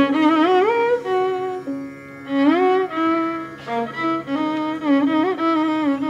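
Background music: a melody of sliding, ornamented notes over a steady low drone.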